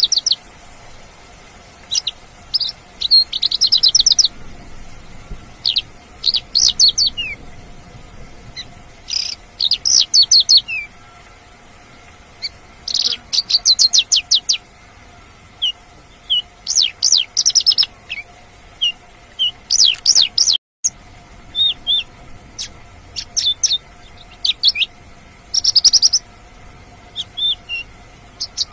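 Mongolian lark singing: bursts of rapid, high chirping trills separated by short pauses, over a faint steady hum. The sound cuts out for an instant about twenty seconds in.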